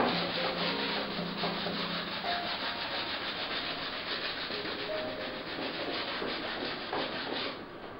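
A hand rubbing and scraping across the surface of a painted canvas in quick, repeated strokes: an artist rubbing out marks on a dark painting.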